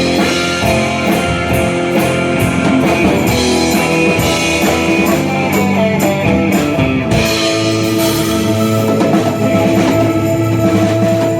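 Live rock band playing: guitar with long sustained notes over bass and drum kit, instrumental with no singing.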